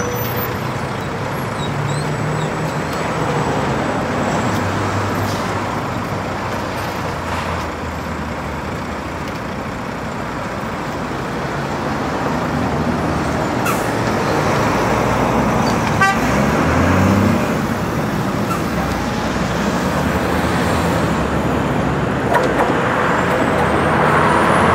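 Steady city street traffic, with truck, bus and car engines running and passing. Near the end a high whine rises as a tram approaches.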